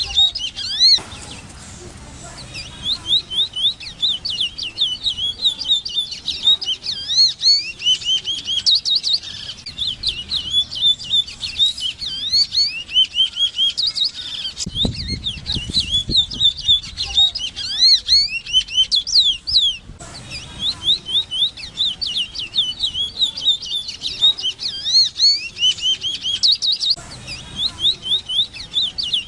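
Large-billed seed-finch singing: a long, fast run of clear slurred whistled notes, with a short pause about a second in and another about two-thirds of the way through.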